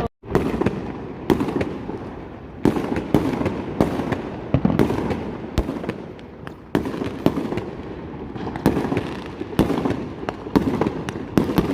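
Many fireworks going off at once: a continuous rumble of bursts with frequent sharper bangs every second or so. The sound drops out for a moment right at the start.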